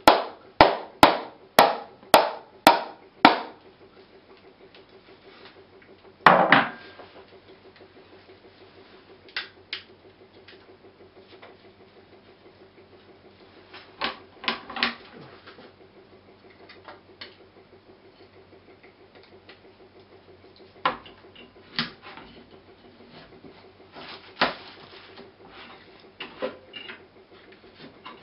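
Coconut shell being knocked: a quick run of about seven sharp knocks, about two a second, then a heavier thump about six seconds in. After that come scattered lighter clicks and scrapes as a knife works at the shell and meat.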